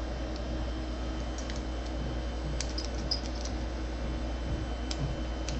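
Faint, scattered light clicks and scrapes of a lock pick working the pins of a pin-tumbler door lock cylinder under a tension wrench, over a steady low hum.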